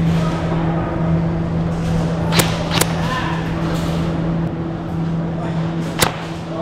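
Sharp snaps of airsoft gunfire: two about half a second apart midway, and another near the end, over a steady low hum.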